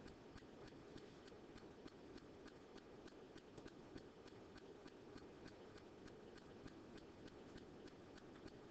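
Near silence: faint room tone with a steady, fast, regular faint ticking, several ticks a second.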